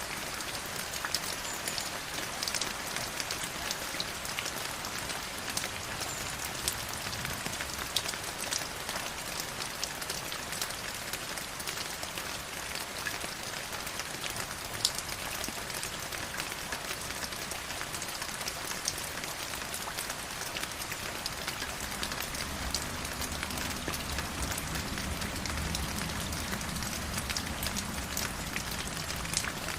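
Forest river flowing: a steady rush of water with many small splashes and drips. A deeper rumble of water comes in about two-thirds of the way through.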